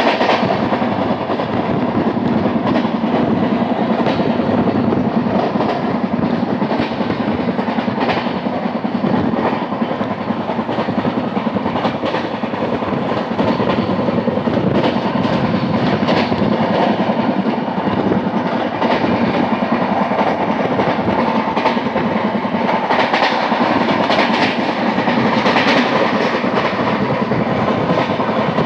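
Wheels of an LHB passenger coach running on the rails at high speed: a steady rumble with a fast, regular pounding from a flat spot worn on a wheel, and occasional sharper clacks.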